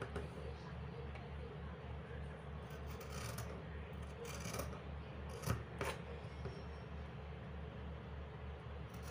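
Scissors cutting through folded cotton fabric along a marked line, the blades closing in a few distinct snips, the sharpest about five and a half seconds in.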